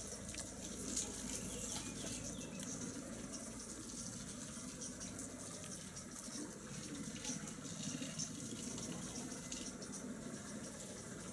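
Kamov Ka-32 coaxial-rotor firefighting helicopter flying low, heard as a steady, faint rushing rotor noise with a few brief clicks.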